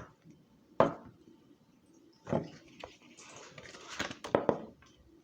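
Handling a picture book and turning its page: a few soft knocks, then a paper rustle with several sharp clicks about three to four and a half seconds in.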